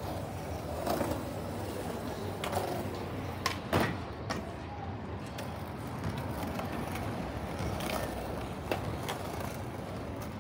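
City ambience: a steady hum of distant traffic with scattered clicks and knocks, the sharpest a little under four seconds in.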